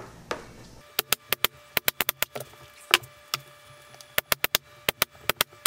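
Pneumatic nailer firing repeatedly, a sharp snap with each nail driven into plywood. About two dozen shots come in quick runs, starting about a second in.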